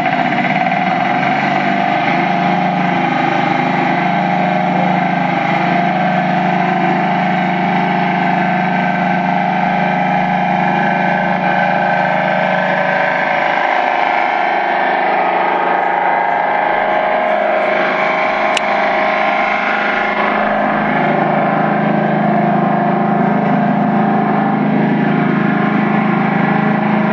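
Small engine running steadily at high speed, its pitch holding level, with no break in the sound.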